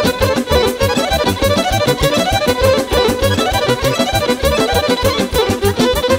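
Live band playing fast instrumental music with a quick, steady beat.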